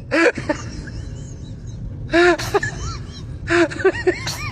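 A baby crying in short bursts of rising-and-falling cries, three groups of them, over a steady low background rumble.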